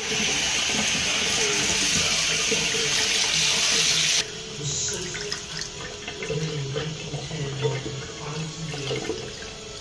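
Kitchen tap running into a stainless steel sink, the stream splashing over raw chicken wings in a plastic tray as they are rinsed by hand. The splashing is loud and steady for about four seconds, then suddenly drops to a quieter, more uneven splash.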